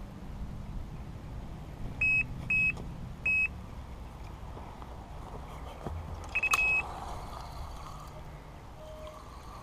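Carp bite alarm signalling a take: three short single bleeps about two seconds in, then a longer tone of the same pitch about six and a half seconds in as line is pulled from the rod.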